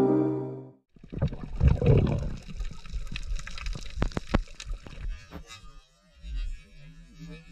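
Underwater camera audio: water gurgling and bubbling around the housing, with many sharp clicks and crackles. After about five seconds it fades to a faint low rumble with scattered ticks.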